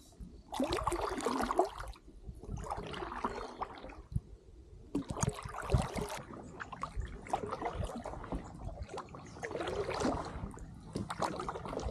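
Kayak paddle strokes: the blades dip and pull through the water with splashing and dripping, in a steady rhythm of roughly one stroke every two seconds.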